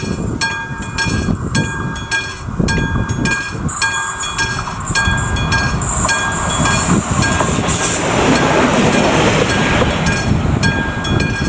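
Classic electric level-crossing bell ringing in even strokes, about two a second, over the rumble of a train running past, with a high wheel screech around the middle.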